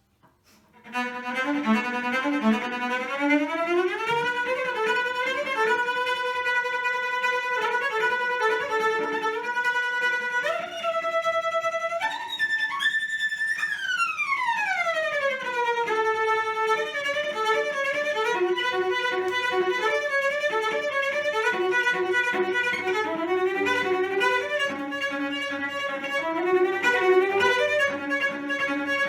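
Violin playing a melody that starts about a second in, sliding between notes, with a long downward glide in the middle.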